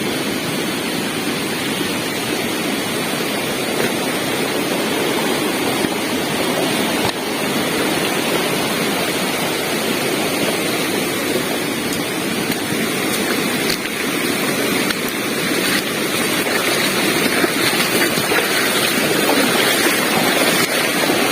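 Steady rush of flowing water, growing a little louder in the second half.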